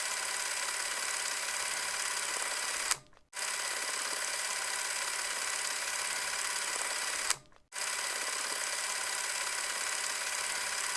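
Steady mechanical whirring of a cash register sound effect played in a loop. It breaks off twice with a sharp click and about half a second of silence, once about three seconds in and again about seven seconds in, then starts again.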